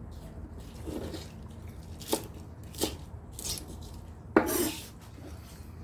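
Shih Tzu crunching on a piece of raw napa cabbage: a few sharp crunchy bites, the loudest about four and a half seconds in.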